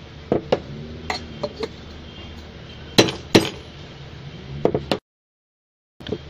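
Steel tumbler clinking against the metal piston lock at the centre of a vacuum brake booster diaphragm, used as a driver to seat the lock. Irregular sharp metallic clinks and taps, with a louder pair about three seconds in. The sound cuts out completely for about a second near the end.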